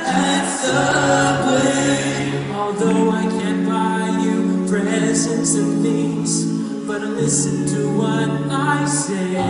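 A six-man a cappella vocal group singing in close harmony, holding chords that change every second or two.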